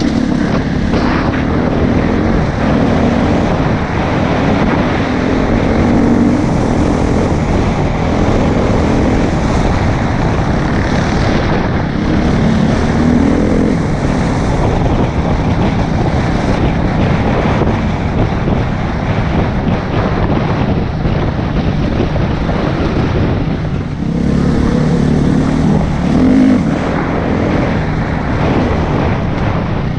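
Husqvarna FE 350's single-cylinder four-stroke engine running continuously as the enduro bike is ridden along a dirt trail, its note swelling and easing with the throttle, with wind buffeting the microphone.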